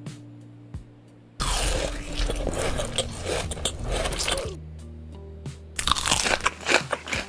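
Close-up crunching of crisp food being bitten and chewed in a mukbang, in two spells, the first starting about a second and a half in and the second near the end.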